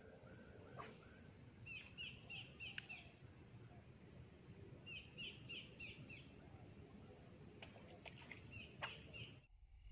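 A bird calling in runs of four or five quick, high chirping notes, repeated several times, over a faint low rumble, with a few soft clicks.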